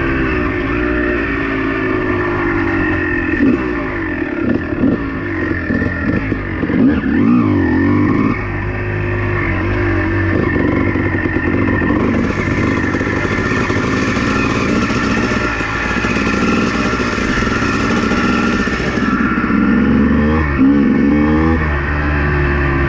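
Honda two-stroke dirt bike engine running under varying throttle, its pitch rising and falling as it revs. A rushing hiss joins in for several seconds in the middle.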